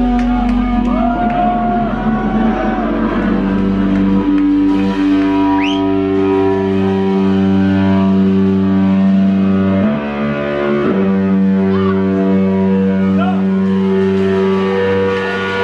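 Live rock band playing, led by electric guitar: long held guitar notes and chords ringing together, with a few short sliding pitches over the top and a brief drop in the sound about ten seconds in.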